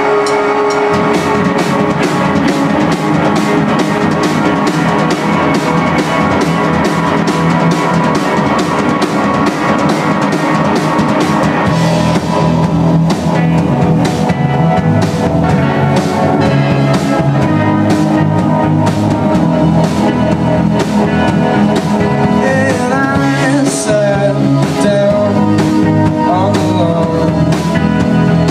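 Rock band playing live: a drum kit keeping a steady beat under electric guitars and keyboards, the sound growing fuller about twelve seconds in.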